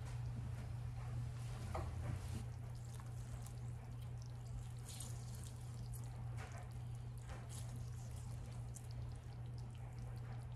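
Pot of pork in lard and liquid bubbling on a gas burner, with scattered small drips and splashes of liquid over a steady low hum.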